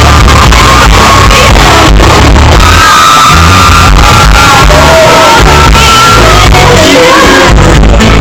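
A woman singing lead into a microphone over a live pop band with heavy bass, very loud. About three seconds in she holds long, high sustained notes.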